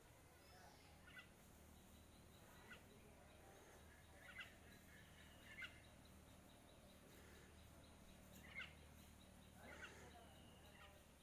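Faint short bird calls, a brief call repeated about six times, a second or a few apart, over a faint steady low hum.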